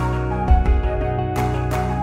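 Background music: soft instrumental with held notes over a steady beat.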